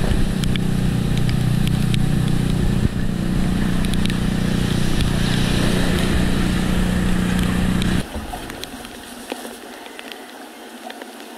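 A loud, steady low motor hum that cuts off abruptly about eight seconds in, leaving quieter splashing and trickling of floodwater with small clicks.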